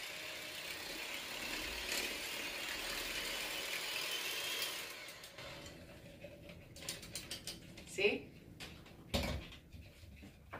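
Electric hand mixer running steadily as it beats whipped cream and condensed milk in a glass bowl. It stops about five seconds in. Then come light clicks and a couple of louder knocks as the mixer is handled and set down on the counter.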